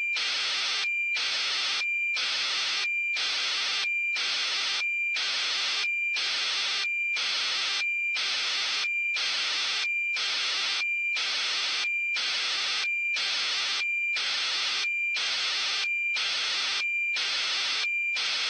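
Hiss of static chopped into even pulses about twice a second, with a thin high steady tone sounding inside each pulse.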